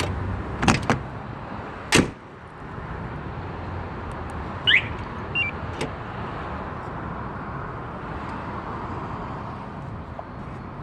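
Aftermarket truck alarm (Magicar Gold 7) giving a single falling siren chirp with a short beep about five seconds in, the kind of chirp that confirms a remote command. Before it come two sharp clunks, about one and two seconds in, and a low rumble that drops away after the second clunk.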